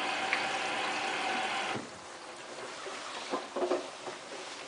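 Hotpoint Ultima WT960 washing machine running with a steady hum and hiss that cuts off abruptly about two seconds in, followed by a few soft knocks.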